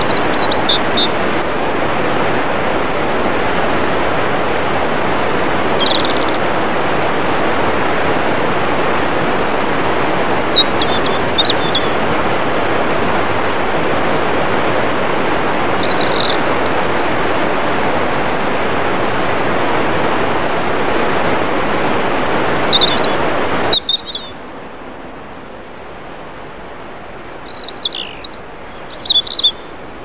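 Waterfall water rushing over rock ledges as a steady, loud noise, with scattered short bird chirps over it. About six seconds before the end the rushing drops suddenly to a much quieter hiss, while the chirps go on.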